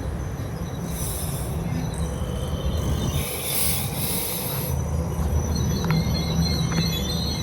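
Metro-North M8 electric train rolling in with a steady low rumble. There are two bursts of hiss in the first few seconds, and a high wheel squeal sets in about five seconds in.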